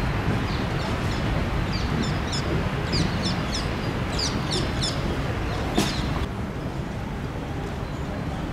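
Small birds chirping, many short high calls that sweep downward, over a steady low outdoor rumble. A sharp click comes near six seconds in; after it the chirping stops and the rumble is a little quieter.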